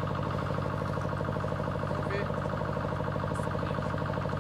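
An engine running steadily at idle, a constant pulsing drone.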